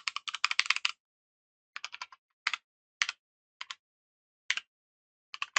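Typing on a computer keyboard while writing code: a quick run of keystrokes in the first second, then scattered single keystrokes and short pairs with pauses between.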